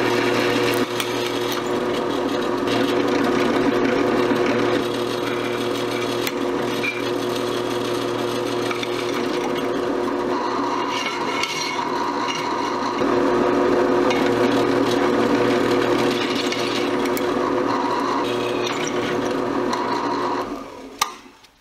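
Drill press running, its twist bit cutting through a metal plate with a steady motor hum and a grinding, scraping sound that swells and eases as the bit bites. Near the end the sound dies away, followed by a single click.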